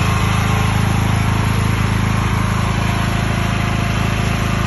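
A 10 kVA portable petrol generator running, its engine holding a steady, even drone at constant speed.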